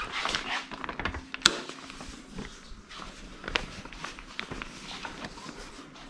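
Footsteps and the rustle of a fabric laundry hamper on a wire frame being carried, with irregular small clicks and one sharp click about one and a half seconds in.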